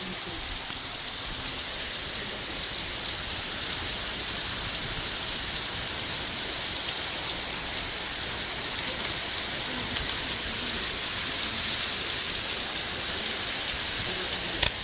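Heavy storm rain pouring down, a steady hiss dotted with the ticks of drops striking surfaces, growing gradually louder.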